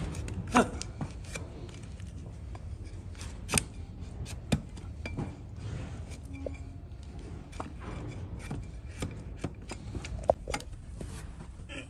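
A wide flat hoof-trimming blade paring and scraping the horn of a donkey's hoof: a run of irregular crisp cuts and scrapes, with a few sharper, louder strokes.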